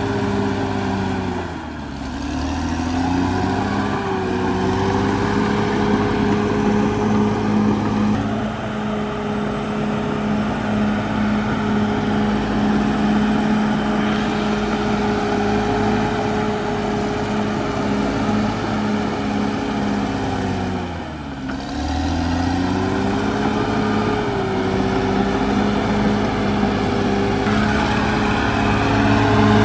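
Caterpillar D6R XL bulldozer's diesel engine running steadily under load. Twice, about two seconds in and again about twenty-one seconds in, the revs dip sharply and then recover, and the revs climb again near the end.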